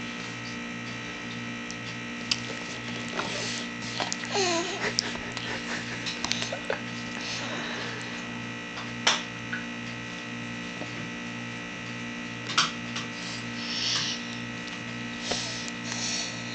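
Steady electrical hum and buzz with a regular faint pulse, under a few soft clicks and wet smacks from a plastic spoon and a baby's mouth during spoon-feeding.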